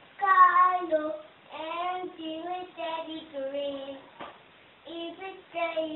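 Young girl singing a children's song unaccompanied, a series of held, stepping notes broken by short pauses between phrases.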